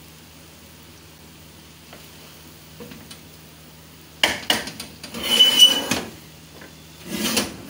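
A spoon clattering and scraping against a steel cooking pot while scooping and turning cooked rice. It comes in two bouts: a burst of clinks and scrapes about four seconds in, with a brief high squeal of metal on metal, and a shorter one near the end.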